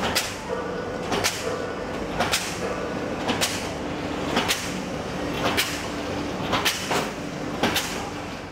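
Horizontal flow-wrap packing machine running while it wraps cup cakes into a chain of sealed packets: a steady mechanical hum with a sharp clack about once a second.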